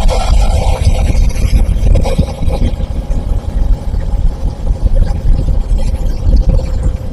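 Suzuki V-Strom SX 250's single-cylinder engine running steadily while the bike is ridden, under a heavy, fluctuating wind rumble on the microphone.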